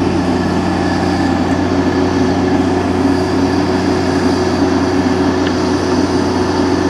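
Crane's engine running at a steady speed, a loud constant low hum.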